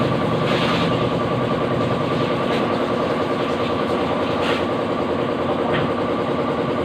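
A motor-driven machine running steadily: a constant drone with a fixed hum, broken by a few short hissing spurts.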